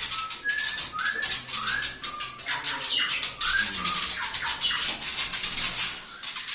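Caged white-rumped shamas singing: a string of short, clear whistled notes that slide up or down, about two a second, over a dense, rapid high-pitched chatter.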